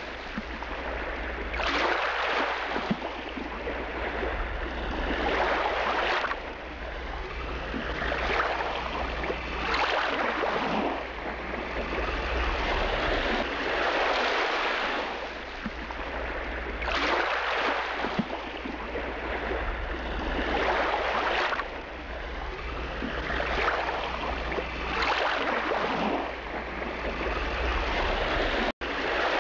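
River water washing and splashing against the hull of a motor boat, in swells that come and go every second or two over a steady low rumble.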